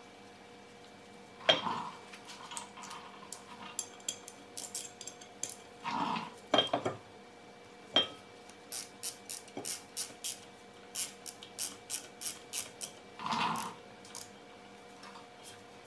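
Light metallic clinks and ticks of hand tools against a brake rotor and hub, with a few heavier knocks about a second and a half in, around six to seven seconds in, and near the end.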